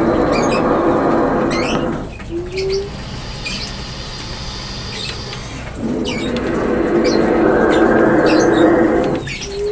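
King cobra growling: two long, low, hoarse hisses, the first lasting about two seconds from the start and the second starting about six seconds in and lasting about three seconds.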